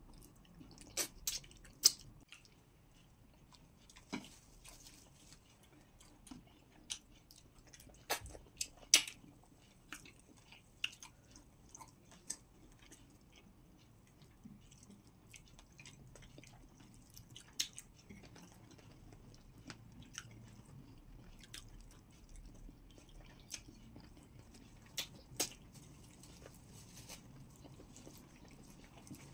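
Two people eating pounded yam with okra soup by hand: soft chewing with sharp clicks and smacks at irregular intervals, the loudest about two and nine seconds in.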